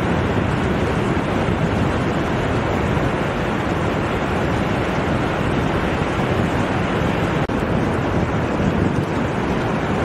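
Ocean surf: small waves breaking and washing up over flat wet sand, a steady rushing noise with wind on the microphone. A brief drop-out about seven and a half seconds in.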